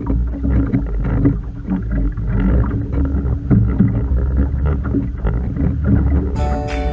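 Boat on the water: a steady low rumble with irregular splashing noise over it. Flute music comes in near the end.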